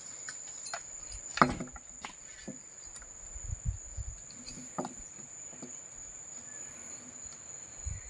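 Steady high-pitched insect drone, with a few knocks and clanks of a chain hook and wooden lever against a squared teak beam; the sharpest knock comes about a second and a half in.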